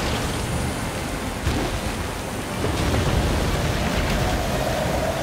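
A torrent of water bursting through a breached concrete dam: dense, steady rushing water with a heavy deep rumble underneath. A faint held tone comes in near the end.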